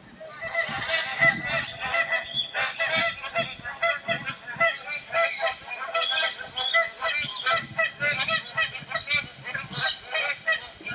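A chorus of magpie geese honking, with many overlapping calls repeating rapidly. The calling starts about half a second in and keeps going without a break.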